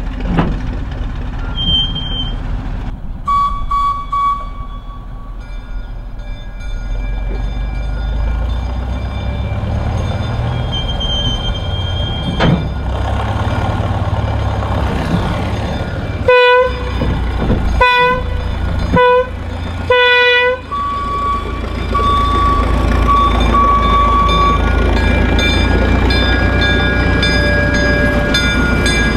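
Plymouth gasoline switcher locomotive running as it pulls a caboose, with four horn blasts, the first and last longer, about sixteen seconds in, sounded for a road crossing. The engine grows louder near the end as the locomotive passes close by.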